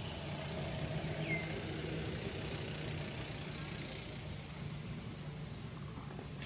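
Steady low hum of an engine running in the background, with a single short, high falling chirp about a second in.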